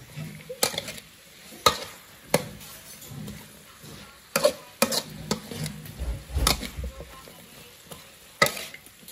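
Metal spatula scraping and clanking against a steel wok while stir-frying shredded lotus stems with pork, with sharp irregular clanks about once a second over a faint sizzle.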